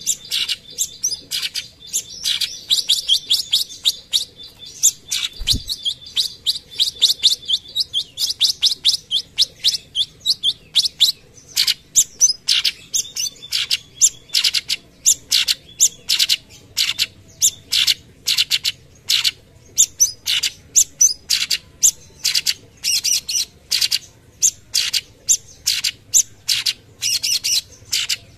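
Orange-bellied leafbird (cucak cungkok) singing its rapid-fire song: a dense, fast chattering run of high notes for about the first ten seconds, then a long series of separate sharp notes at about two or three a second.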